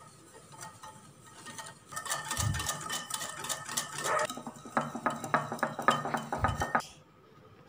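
Wire whisk beating a thin cake batter in a glass bowl, the wires clicking and scraping rapidly against the bowl. It starts about two seconds in and stops abruptly near the end.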